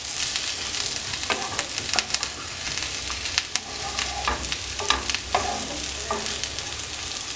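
Fried chicken pieces with shallots and crushed chilli sizzling in a nonstick pan while a spatula stirs them, with repeated scrapes and knocks of the spatula against the pan.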